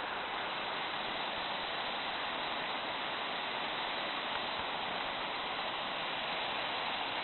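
Waterfall: water falling and splashing as a steady rushing noise.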